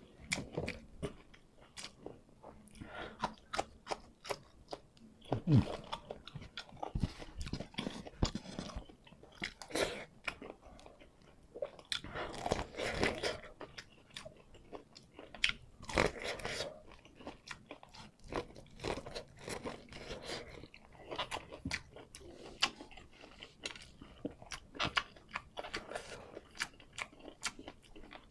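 A person chewing and crunching food, with many small mouth clicks and louder crunches at irregular moments.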